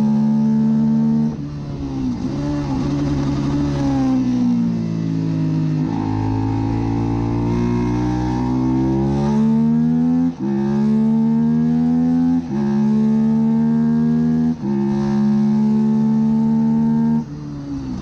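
Suzuki SV650 race bike's V-twin engine running hard under throttle. About a second in the throttle shuts and the pitch falls, then climbs again; later the note breaks off briefly three times about two seconds apart and picks up again each time, and the revs drop once more near the end.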